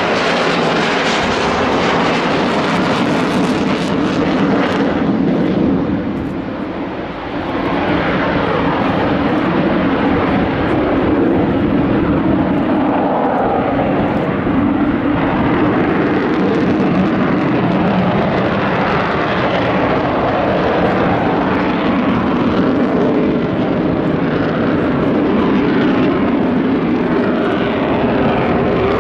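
Avro Vulcan XH558's four Rolls-Royce Olympus turbojets at high power in a flypast: a loud, steady jet roar with a low tone running through it, easing briefly about six seconds in.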